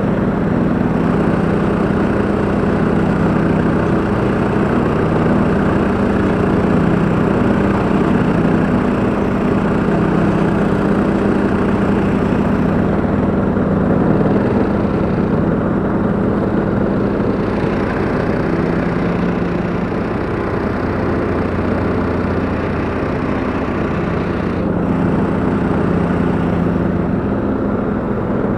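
Husqvarna LTH 174 lawn tractor's petrol engine running steadily at working speed while the rig mows grass, heard from the driver's seat, with small rises and dips in pitch.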